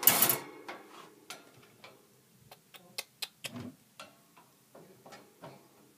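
Wood-shaving bedding in a hamster cage rustling and crackling: a louder rustle at the start, then sparse, irregular light clicks.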